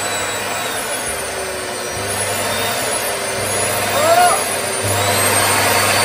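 Old Mitsubishi vacuum cleaner running, a steady whir with a thin high whine that wavers slightly in pitch, as it is tried out after being repaired.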